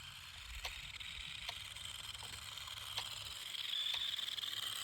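Small toy RC car driving fast, its electric motor and gears giving a thin high whine that climbs in pitch and gets louder near the end, with a few faint ticks.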